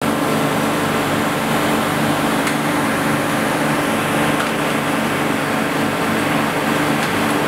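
Steady hum and noise of machinery in an aluminium extrusion plant, the roller conveyor line and plant equipment running, with a couple of faint clicks.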